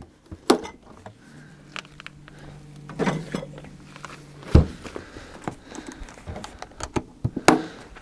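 Glass beer bottles clinking and knocking as they are handled and set into a camping fridge's wire basket, with the lid and its canvas cover being opened: scattered clinks and knocks, the loudest about half a second, three, four and a half and seven and a half seconds in. A faint low hum runs under them.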